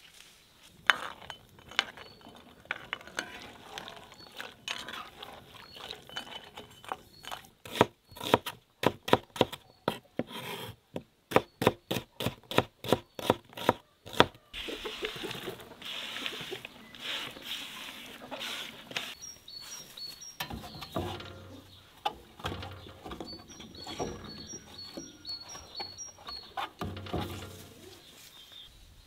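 Knife slicing onion on a wooden chopping board: a run of sharp chops, about three a second, for several seconds. Later, small birds chirp in short repeated notes.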